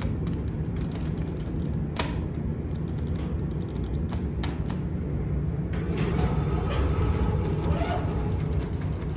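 Hydraulic elevator car at a landing, with its machinery giving a steady low hum. Sharp clicks come at about two seconds and about four and a half seconds, and a stretch of creaking mechanical noise follows from about six seconds.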